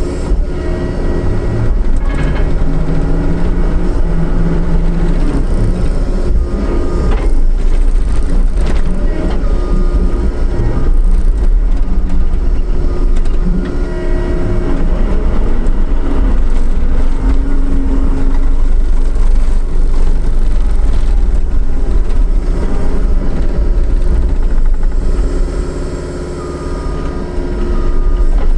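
John Deere 333E compact track loader working: its diesel engine runs loud and steady under load, its pitch rising and falling as the machine moves and works, with occasional knocks. The sound eases off briefly near the end.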